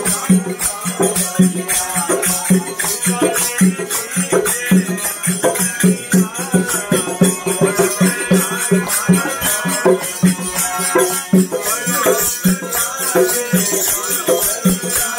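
Marwari devotional bhajan: singing over a steady low drum beat about twice a second, with jingling hand percussion shaken along.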